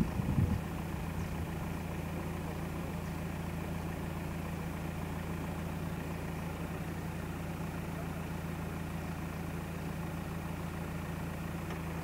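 An engine idling steadily with a low, even hum. A few low thuds sound in the first half second.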